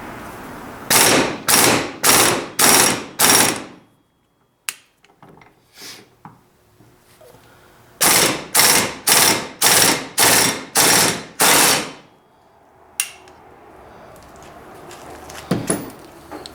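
Impact wrench hammering in short trigger bursts, about two a second: a run of five, then after a pause a run of about seven.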